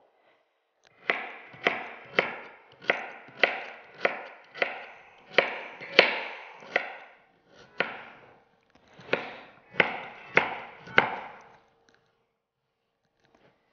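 Chef's knife chopping sweet potato into cubes on a wooden cutting board: a steady run of sharp knocks, about two a second, stopping a couple of seconds before the end.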